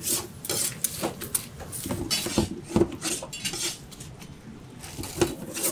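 Metal spatula and cleaver clanking and scraping on a steel griddle while a scallion pancake is lifted and chopped into pieces: irregular sharp clinks and knocks, thinning out for a moment after the middle.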